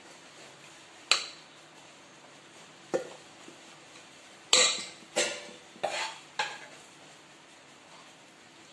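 A serving spoon knocking and scraping against a cooking pot while food is scooped out, about seven sharp clinks with a short ring after each. The loudest clink comes about halfway through, followed by a quick cluster.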